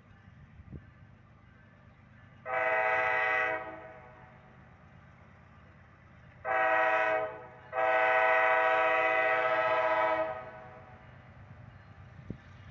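Freight locomotive horn sounding three blasts as the KCSM train approaches: one of about a second, a short one around six and a half seconds in, then a longer one of about two and a half seconds. A low rumble runs beneath.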